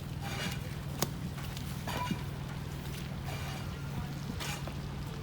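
Steady low rumble of street traffic, with a few brief wet splashy noises of slush and a sharp click about a second in.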